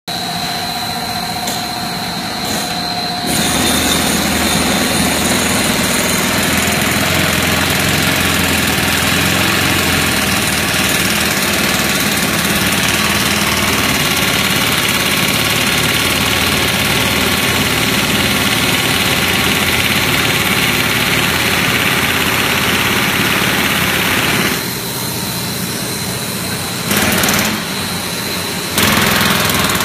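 PVC fibre-reinforced garden hose extrusion line running: steady machinery noise with a constant high whine, getting louder about three seconds in and dipping briefly near the end.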